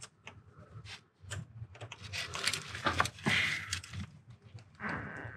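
Hand-tool work on a BMW N55 engine's Valvetronic servomotor: an irregular run of small metal clicks, taps and scrapes as the Torx screws and the motor are worked loose.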